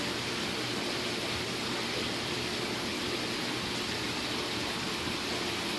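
Steady rushing of water circulating through a saltwater aquarium setup, with a faint low hum from its pumps.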